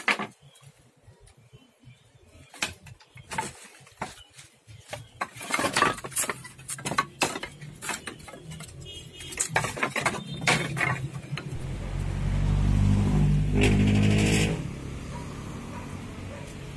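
Pieces of scrap wood knocking and clattering against each other as they are picked out of a pile by hand. About two-thirds of the way through, a motor vehicle engine runs loudly for about three seconds, then drops to a quieter steady hum.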